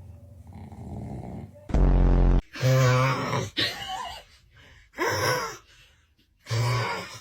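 A man snoring loudly. A quieter, raspy breath comes first, then from about two seconds in a run of five loud, groaning snores.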